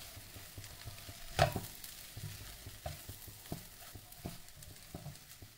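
A wooden spatula stirs and scrapes egg and dosa pieces around a nonstick pot, giving irregular light taps and knocks, the loudest about a second and a half in, over a faint sizzle of frying.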